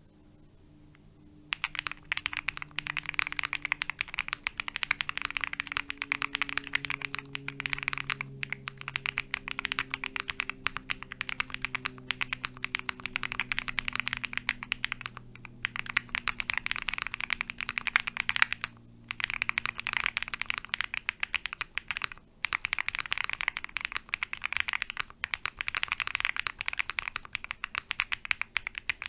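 Continuous typing on an OwlLabs Mr. Suit custom mechanical keyboard: lubed Holy Panda tactile switches in polycarbonate housings on a soft polycarbonate plate, gasket-sleeve mounted with PE foam. The typing starts about a second and a half in, with a few short pauses.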